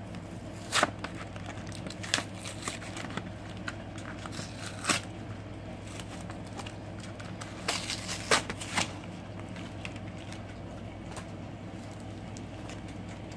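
Packaging of a Pokémon trading card collection box being torn open by hand: scattered sharp crackles, crinkles and rips, loudest about a second in and in a cluster around eight seconds in, over a steady low hum.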